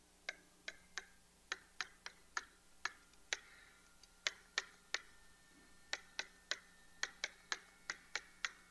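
Pen tapping and clicking against an interactive whiteboard as numbers are handwritten: about twenty sharp, irregular clicks, with short pauses between strokes.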